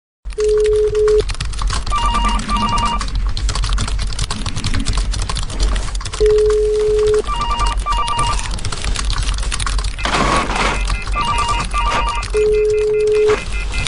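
Office telephone ringing in pairs of short rings about every five seconds, alternating with a low steady beep of just under a second, over steady computer keyboard typing and a low background hum.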